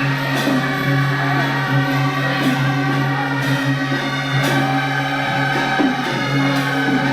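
Loud music of held, layered tones over a regular beat that strikes about once a second.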